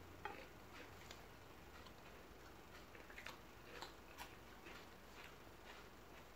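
Near silence with faint, irregular soft clicks and rustles as roti is torn by hand and dipped into a bowl of dal.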